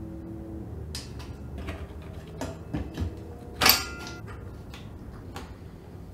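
Small metal clicks and taps as a headset press is put together: compression sleeves and nuts slide and knock on the steel threaded rod. One sharp metallic clink with a short ring comes a little past halfway and is the loudest sound.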